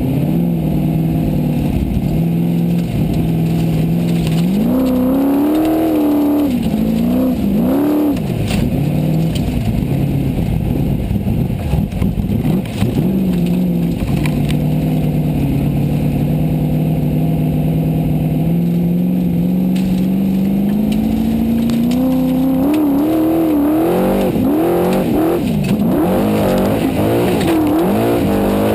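Formula Offroad race car's engine heard from inside the car: quick surges of revving up and down, then a long stretch of held revs climbing slowly, then repeated revving up and down again near the end.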